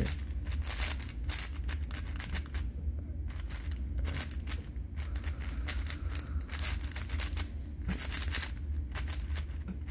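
A new Qiyi Wuque 4x4 speedcube being turned quickly, its plastic layers clicking and scraping in rapid, irregular runs. The cube is fresh out of the box and still breaking in, rough ("sandy") but already getting faster.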